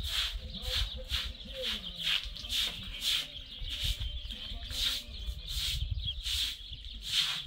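Broom sweeping a concrete yard: a steady run of short swishing strokes, about two a second.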